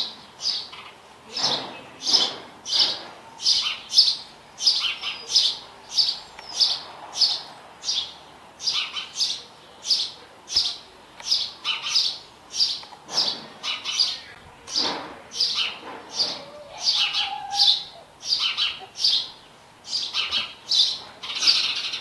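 House sparrow chirping: a steady run of short, bright chirps, about one and a half a second, kept up without a break.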